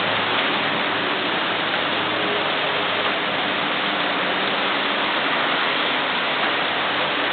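Heavy summer rain falling steadily, an even hiss with no breaks. A faint low hum sits underneath for the first few seconds.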